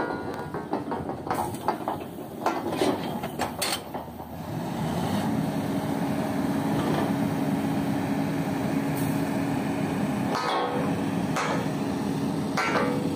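Steel tubing joints clanking against each other and the pipe rack. From about four seconds in, the workover rig's engine and hoist run steadily with one held tone while the travelling block lifts a tubing string, and a few more metal clanks come near the end.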